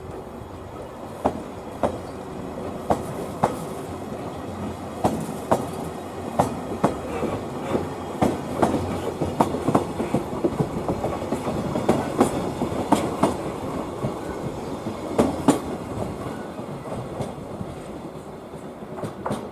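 Freight train hauled by an EF81 electric locomotive rolling past: a steady rumble with sharp clacks of wheels over rail joints, irregular, one to three a second.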